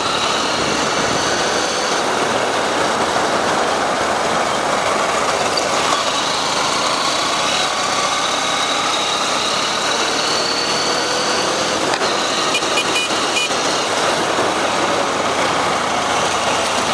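A motor vehicle's engine running steadily under a constant rush of noise, with a few brief clicks about thirteen seconds in.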